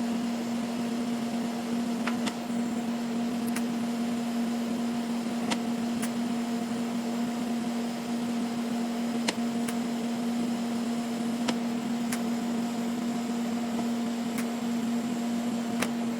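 Steady mechanical hum of a running machine, one low tone with weaker overtones over a hiss, with a few faint ticks.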